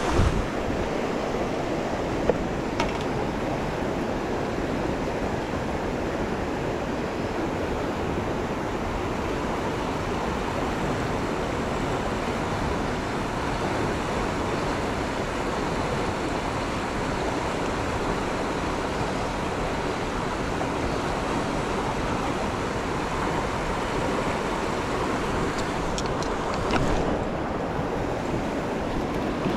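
Steady rushing of river current flowing past the wading angler, a continuous even wash of water noise. A couple of brief knocks come in the first few seconds.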